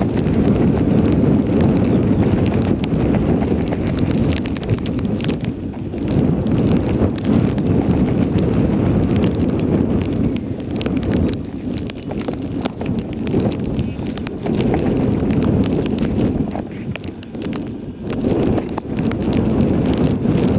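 Wind buffeting the microphone: a low rush that swells and dips in gusts.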